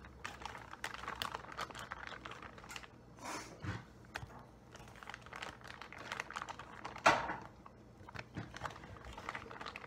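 Plastic zip-top bag crinkling and crackling as it is handled with flour and pieces of meat inside, with one louder crackle about seven seconds in.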